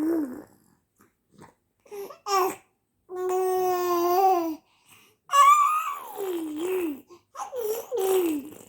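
Six-month-old baby babbling and vocalizing: a short sound about two seconds in, then a long steady held vowel of about a second and a half, then two drawn-out calls that glide up and down in pitch, the last one falling.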